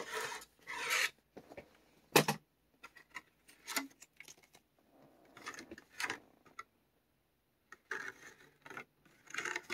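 Irregular rustling and clicking as a HeroClix booster's packaging is opened and its small plastic figures are handled.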